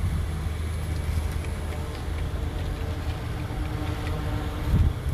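Car engine idling close by, a steady low rumble, with a brief thump near the end.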